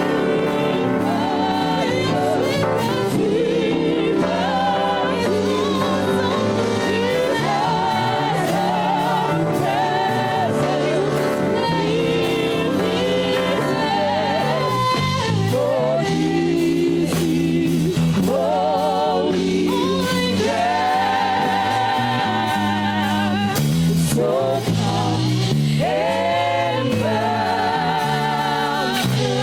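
Gospel worship music: sung vocals with vibrato over sustained keyboard-like chords, with a choir joining in.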